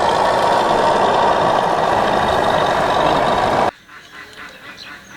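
A toy jeep's built-in electronic sound effect plays loud and steady, then cuts off suddenly about three and a half seconds in.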